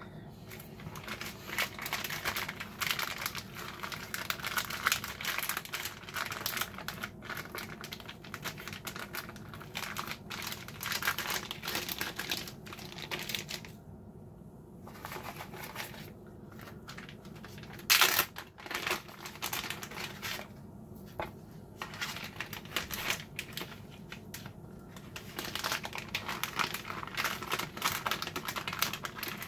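Plastic zip-top freezer bags crinkling and rustling as hands handle them and press the zipper seals shut, with many small crackles and clicks. One louder sharp crackle comes a little past halfway.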